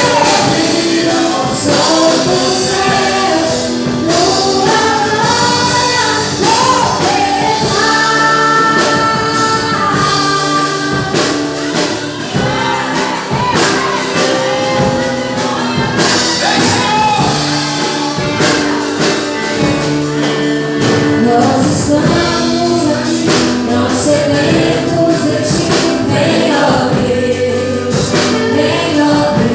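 Worship music: a song sung by several voices over instrumental accompaniment with a steady beat.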